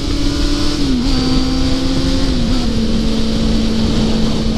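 Sport motorcycle engine running at a steady cruise, heard from the rider's position. Its note dips briefly about a second in and again about two and a half seconds in, settling slightly lower each time. Wind rushes over the microphone throughout.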